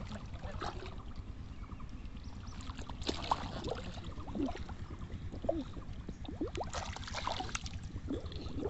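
Muddy pond water sloshing and splashing around a person wading waist-deep, with busier splashing about three seconds in and again near the end as he reaches into the water.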